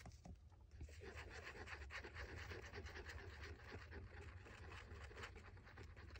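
Glue bottle's applicator tip rubbed across a paper tag, a faint, rapid scratching that starts about a second in.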